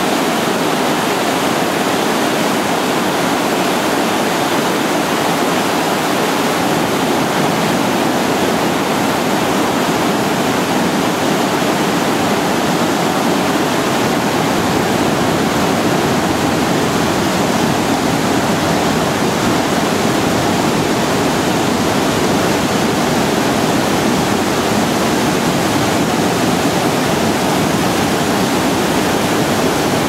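River rapids and small falls of whitewater rushing over rocks: a loud, steady rushing of water that holds even throughout.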